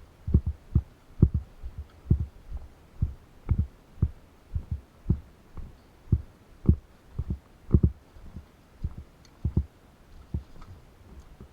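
Footsteps heard as low, dull thumps, about two a second and fairly even, as a player walks.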